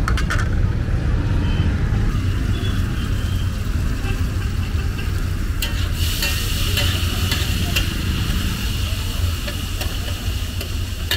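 Liver pieces and chopped tomatoes sizzling on a large flat tawa griddle, with a metal spatula scraping and tapping against it. The sizzle grows louder about halfway through, over a steady low rumble of road traffic.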